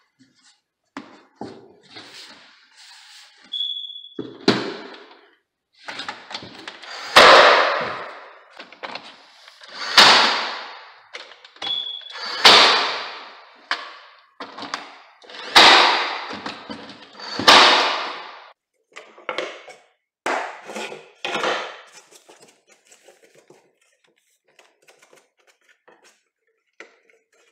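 Cordless brad nailer driving nails into a new pine stair riser: a series of loud thuds two to three seconds apart, with fainter knocks and clatter near the end.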